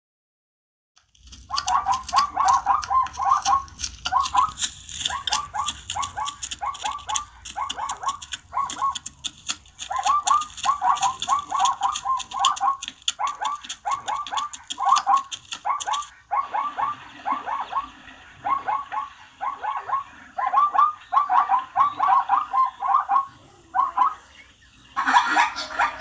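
Zebra barking: runs of short, high calls repeated quickly, several a second, in bursts with brief gaps between them. The calls start about a second in, after a moment of silence.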